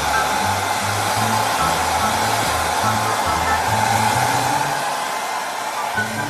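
Loud steady whooshing noise from a small motorised appliance blowing air, with background music and a plodding bass line underneath.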